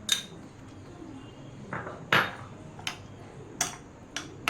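A spoon stirring mayonnaise into a thick sauce in a bowl: about six short scrapes and clinks against the bowl, the loudest about two seconds in.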